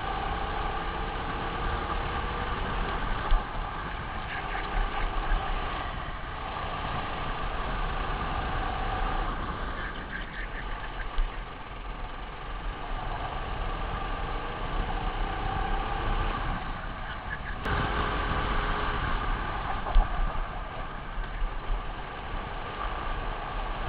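Racing kart engine running continuously at speed, heard from on board, its pitch shifting as the driver works the throttle through the corners, with a couple of sharp knocks.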